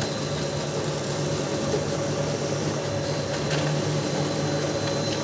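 Brother DCP-L2540DW laser printer running a test print: a steady motor-and-gear hum with a faint high whine and no knocking, its drive gears freshly repaired.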